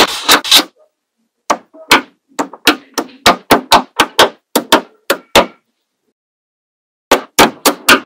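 Small neodymium magnet balls snapping onto a strip of magnet balls with sharp clicks: three clicks, a pause, a run of about a dozen irregular clicks, another pause, then four quick clicks near the end.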